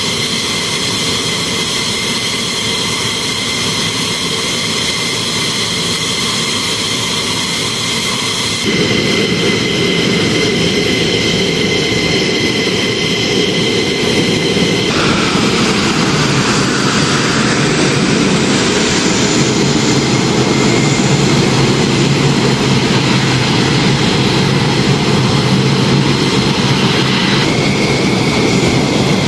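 Fighter jet engines running on the ground: a loud steady rush with a high whine that is strongest in the first half. The sound changes abruptly about nine and fifteen seconds in.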